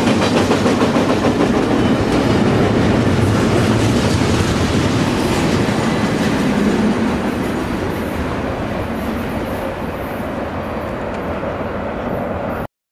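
Double-stack container freight train rolling past, its steel wheels running on the rails in a steady rumble. The noise eases off about seven seconds in as the last cars go by, then cuts off suddenly near the end.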